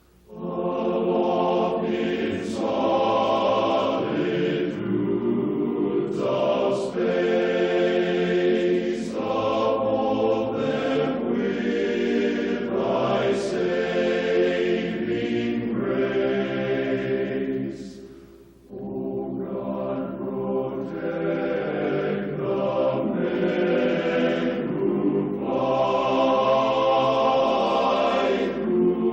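A choir singing long held notes in phrases a few seconds each, breaking off briefly about eighteen seconds in.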